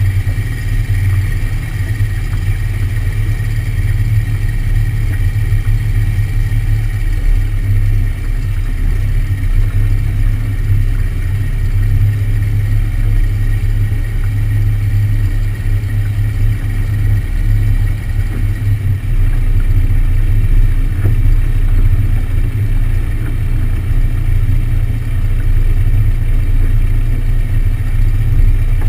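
Small airplane's engine and propeller running at low power while the plane taxis, heard through a wing-mounted camera: a steady low drone.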